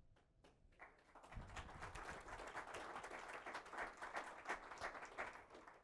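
Faint audience applause: a few scattered claps at first, then a couple of seconds of steady clapping that thins out near the end.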